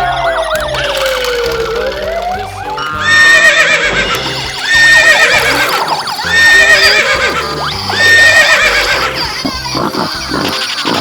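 Children's background music with a sound effect laid over it: a long pitch glide that falls for about two seconds and then swoops back up, followed by four loud, identical calls repeated about every one and a half seconds.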